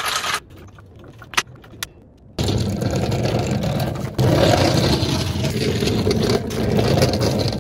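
Motorcycle scissor lift being raised under a Harley-Davidson Sportster: a couple of sharp clicks, then a steady, loud mechanical noise that starts about two and a half seconds in and shifts slightly a little later.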